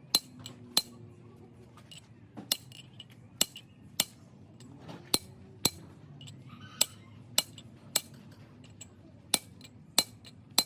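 Sharp metal-on-metal taps, about a dozen irregularly spaced strikes, roughly one a second, each with a short ring.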